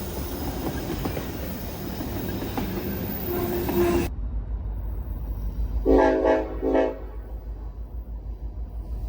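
Train rolling past with steady wheel-on-rail noise that cuts off suddenly about four seconds in. Over a low rumble, a train horn then sounds twice, a longer blast followed by a short one.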